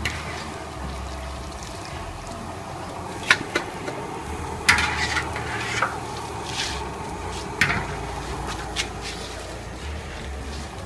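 Steady hiss of frying in a wok of hot oil, broken by about five sharp clinks of metal utensils against metal pans and bowls.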